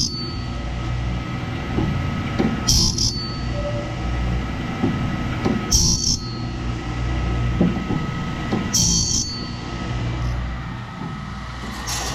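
Wood-Mizer BMS 250 band-saw blade sharpener running dry, without grinding oil. Its motor hums steadily while the CBN grinding wheel screeches briefly on a tooth about every three seconds as the blade indexes forward one tooth at a time.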